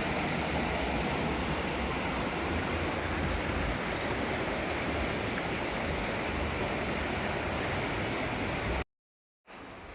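Mountain river water rushing steadily over rocks. A little under 9 s in it cuts off suddenly, and after half a second of silence a much quieter forest ambience begins.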